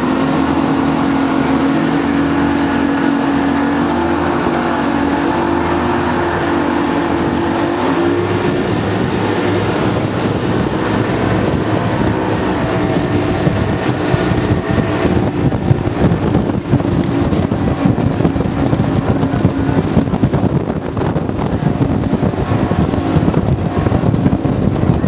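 Outboard engines running hard on a speedboat at speed: a steady multi-note drone whose pitch shifts about eight seconds in, under rushing wind on the microphone and the hull slapping through choppy water, which grows stronger in the second half.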